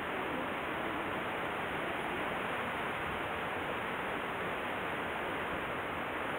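Steady rush of flowing stream water, an even hiss with no breaks or changes.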